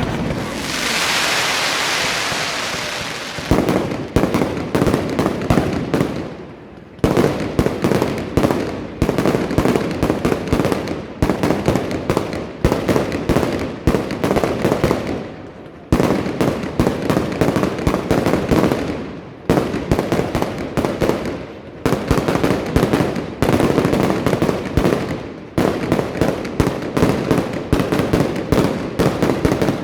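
Fireworks display: a dense run of bangs and crackling bursts, a hissing rush in the first few seconds, then rapid volleys of reports broken by brief lulls.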